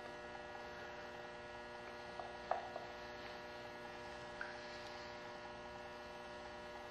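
Steady electrical hum, with a few faint clicks and scrapes of a scoring tool working wet clay. The sharpest click comes about two and a half seconds in.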